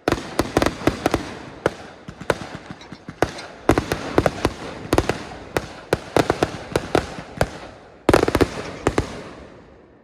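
Fireworks going off in rapid flurries of sharp cracks and pops, each flurry starting loud and tailing off, with a new one about every second or two.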